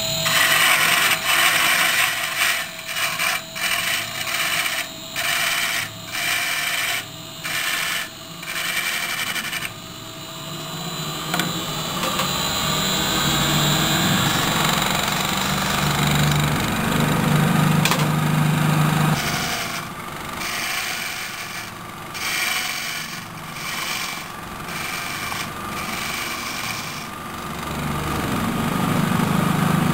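Wood lathe spinning a large wooden pedestal blank while a hand-held turning tool cuts it in a run of short passes with brief breaks. After about ten seconds the cutting gives way to the lathe's steady low running hum, with more short bouts of cutting later on.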